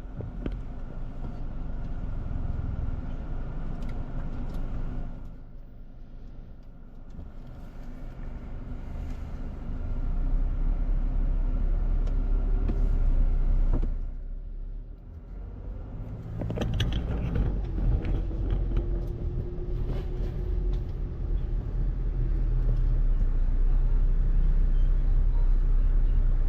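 A car driving: a steady low rumble of engine and road noise, swelling louder in stretches, with a few light clicks.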